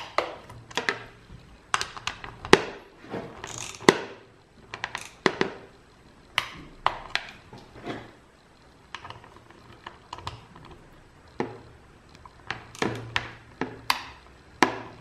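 Ratcheting torque wrench clicking as it tightens the clamp bolts of a water-filter module's end cap to 5 newton metres: sharp clicks in short, irregular runs with brief pauses between them.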